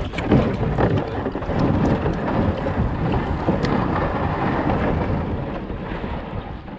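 Fast creek water rushing around a kayak, with heavy noise on the microphone.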